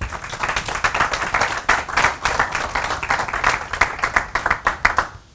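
Small audience applauding, a steady patter of many hands clapping.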